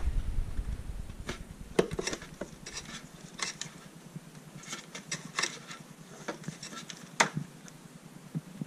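Scattered light clicks, knocks and rubbing of plastic as an old water pump is worked loose and lifted out of a Saeco Intelia espresso machine's housing.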